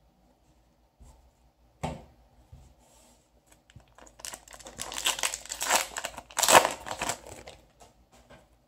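Foil wrapper of a Yu-Gi-Oh! Soul Fusion booster pack crinkling and tearing as it is ripped open by hand, starting about halfway through and loudest near the end, with a single knock a couple of seconds in.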